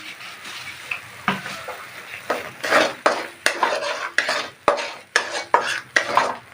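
Spoon stirring and scraping ginger paste as it cooks in ghee in a pan, with a light sizzle. The strokes are sparse at first, then come about two or three a second from about two seconds in.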